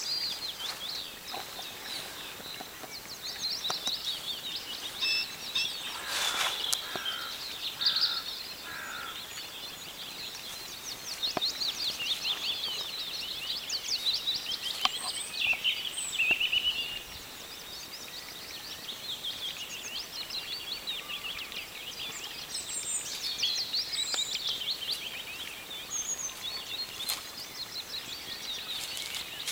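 Small songbirds singing continuously, in fast, high trills and chirps, with a few soft clicks about six seconds in.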